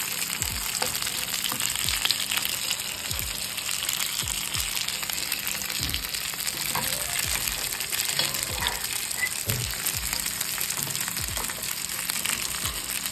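Food frying in a pan: a steady, dense hissing sizzle. Deep bass thumps from a music track, about one a second, run underneath.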